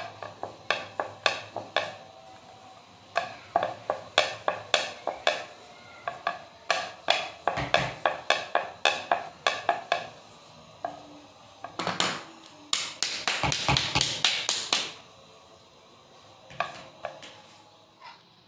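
Wooden rolling pin rolling out dough on a hard round rolling board, clacking sharply with each back-and-forth stroke, about three knocks a second. There is a short pause about two seconds in and a denser run of knocks a little past the middle.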